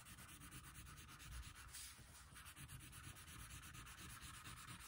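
Faint scratchy rubbing of a wax crayon stroked back and forth across paper, coloring in a background.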